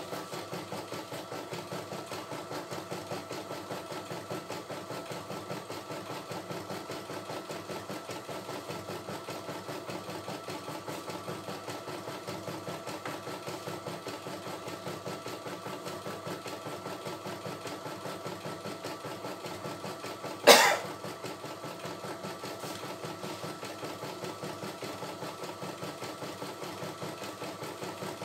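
CNY E960 computerized embroidery machine stitching a design: the needle working in a fast, steady rhythm over the hum of its motor as the hoop moves. One sharp, loud knock about three-quarters of the way through.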